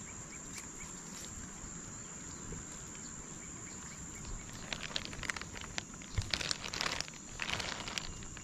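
A steady high-pitched insect drone over a faint outdoor background. From about five seconds in, bursts of crackling and rustling as people walk through the tall shoreline grass.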